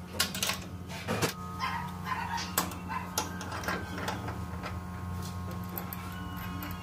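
Ratchet wrench clicking as it tightens a bolt on a metal door, then a few scattered metal clicks and knocks, over a steady low hum.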